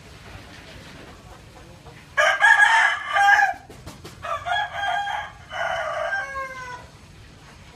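Rooster crowing once: a loud, drawn-out cock-a-doodle-doo in three phrases. It starts about two seconds in, lasts about four and a half seconds and ends on a falling note.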